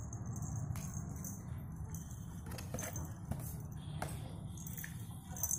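Small plastic toy parts clicking and clinking as they are picked up and moved about on a cloth-covered table, a few separate clicks over a steady low hum.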